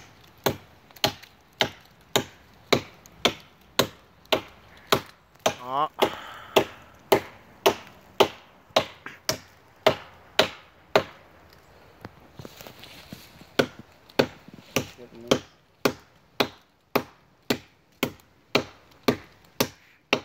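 Hatchet chopping into a standing tree trunk: a steady run of sharp wooden chops, a little under two a second, as the blade bites into the trunk.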